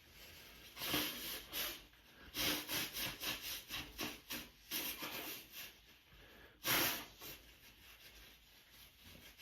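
A tissue being rubbed and wiped hard against a runny nose in quick repeated strokes, about two to three a second, with one louder burst near the end.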